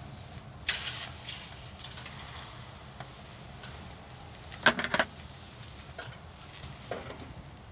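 A raw eel fillet laid on a charcoal grill's hot wire grate, starting to sizzle suddenly about a second in and fading off. Around five seconds in comes a quick run of sharp metal clinks from tongs and scissors against the grate, with a couple more near the end.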